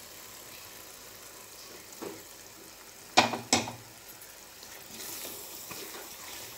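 Faint sizzle of marinated chicken going into a pan of hot fried masala, with two sharp knocks on the pan about three seconds in.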